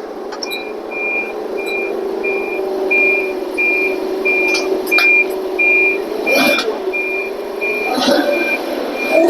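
Forklift's reversing warning beeper sounding steadily, about two high beeps a second, over a steady hum, with a couple of brief knocks in the second half. The beeper goes with the forklift being left in gear rather than neutral.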